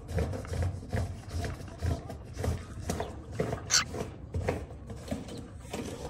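Grey cockatiel giving a few short, harsh, breathy sounds, the clearest one just over halfway through, over an uneven low rumble on the microphone.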